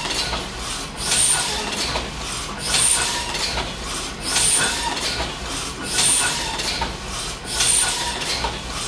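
A 1972 Heidelberg Original Windmill platen press running a hot foil stamping job. Its gripper arms carry one sheet per cycle, making a rhythmic mechanical clatter and hiss that swells about every second and a half. The press is turning near its slowest speed of about 2,200 sheets an hour.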